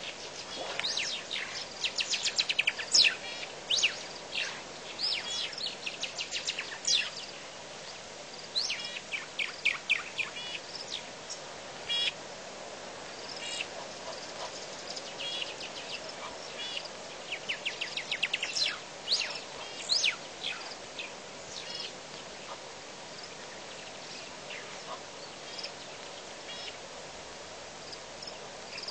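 Banded mongoose troop twittering with high-pitched chirping contact calls, many short chirps in quick runs. The calls are busiest through the first dozen seconds and again briefly about two-thirds in.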